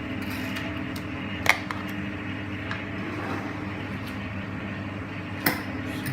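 Steady low hum of a running kitchen appliance, with two sharp knocks of kitchenware, about a second and a half in and near the end, as chutney is spooned into the marinade.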